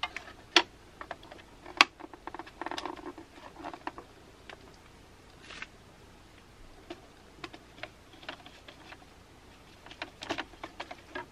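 Scattered light clicks, taps and rustles of hands working a wire into a plastic breaker box and a small modular circuit breaker. A cluster of clicks comes about ten seconds in, as a screwdriver goes to the breaker's terminal.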